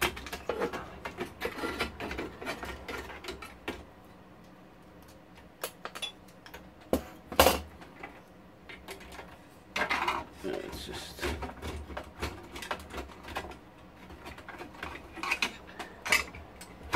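Irregular clicks, taps and light clatter of circuit boards and ribbon-cable connectors being handled and worked loose from the frequency counter's metal chassis. Two sharper knocks come about seven seconds in, with quieter stretches on either side.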